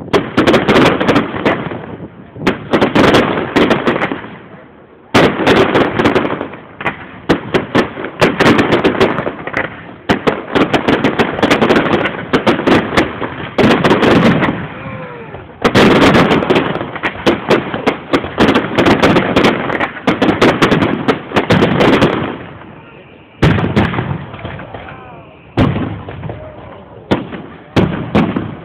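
Fireworks display: dense volleys of bangs and crackling from bursting aerial shells, coming in waves with brief lulls between them.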